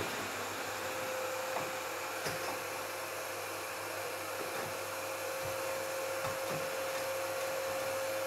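Canister vacuum cleaner running steadily with a constant whine, its hose wand sucking dust and debris from between floor joists.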